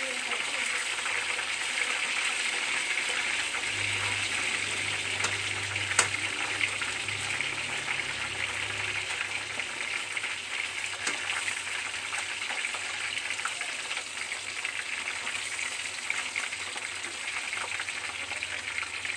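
Chicken pieces deep-frying in a wok of hot oil, a steady hissing sizzle, with one sharp click about six seconds in and a fainter one later.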